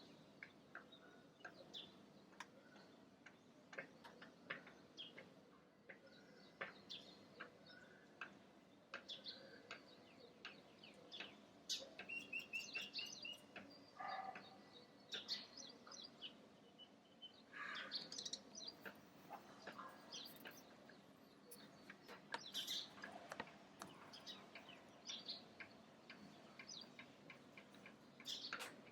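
Several wild birds chirping and calling in short, high notes scattered throughout, with a quick run of repeated notes about twelve seconds in.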